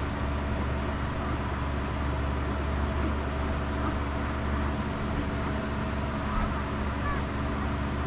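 A steady, even mechanical hum with a low drone, unchanging throughout.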